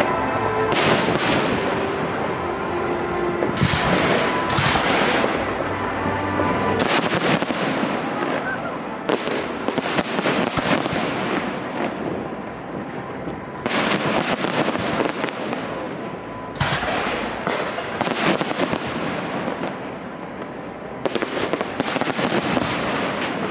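Fireworks display: volleys of dense crackling bursts, coming in clusters every two to four seconds.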